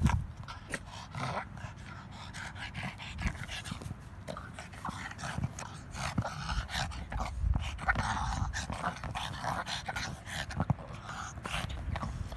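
Boston terrier worrying a basketball with its mouth and paws: short dog noises over many small, irregular knocks and scrapes against the ball.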